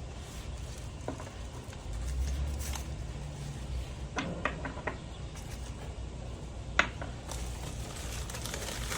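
A few light clicks and taps from small pieces and packaging being handled, a quick run of them about four seconds in and one sharper click near the end, over a steady low hum.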